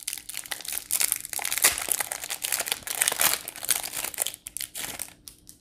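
Plastic wrapping on a small pack of game cards being torn open and crinkled: a dense crackling that thins out near the end.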